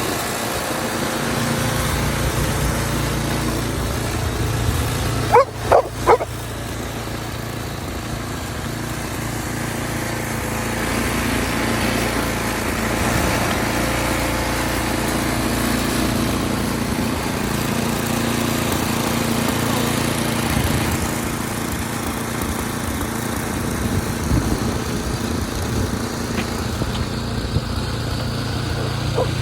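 An engine running steadily, with a dog barking about three times some six seconds in.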